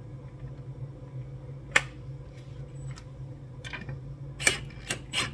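A few sharp, separate metallic clicks and knocks as a lug nut is run down onto a wheel stud with dirty threads: one about two seconds in, then several close together near the end.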